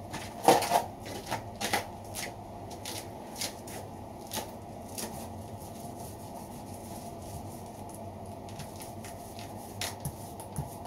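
Peel ply cloth being unrolled off a cardboard roll and pulled taut over wet fibreglass laminate: a run of irregular light rustles and clicks, heaviest in the first couple of seconds and again near the end, over a steady low hum.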